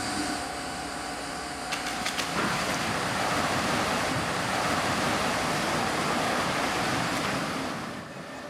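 Water rushing and splashing into a dunker (aircraft-cabin underwater escape trainer) as it plunges into the pool and floods. A few knocks about two seconds in, then a loud steady rush that drops away near the end as the cabin goes under.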